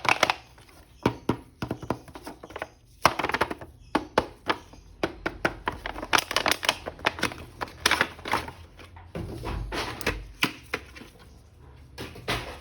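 Action-figure packaging being handled and opened by hand: a busy run of sharp clicks, taps and crinkles.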